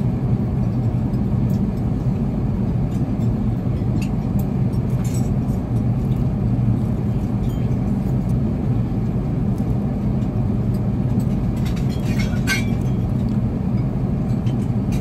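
Steady low drone of an Airbus A380 cabin in flight, engine and airflow noise. A few light clinks of cutlery on the dishes come through it, most around twelve seconds in.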